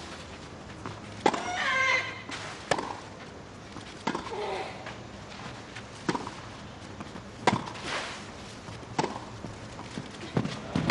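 Tennis rally on clay: ball struck by rackets about every second and a half. A player gives a loud falling shriek with the stroke about a second in, and shorter grunts with later strokes.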